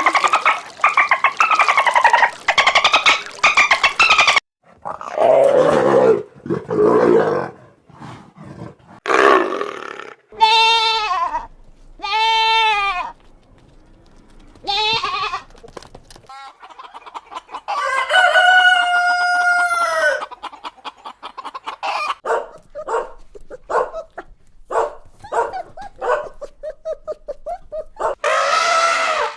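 Chickens calling: roosters crowing in a series of separate arched calls with one long drawn-out crow, among hen clucking and squawks.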